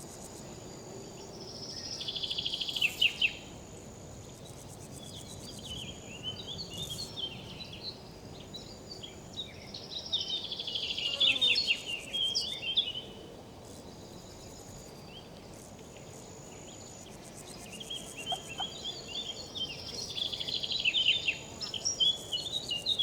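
Riverside ambience: river insects give a steady high buzz over a low rush of flowing water. A songbird sings four bursts of quick, varied chirping phrases over it.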